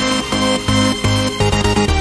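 Background electronic dance music with a steady beat and pulsing bass.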